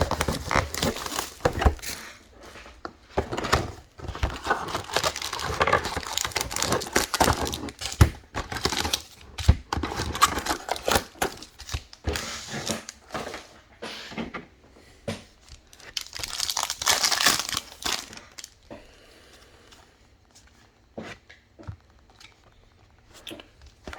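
Plastic wrapping on a box of trading cards and its packs being torn open and crinkled, with dense rustling that thins out near the end to scattered light clicks of cards being handled.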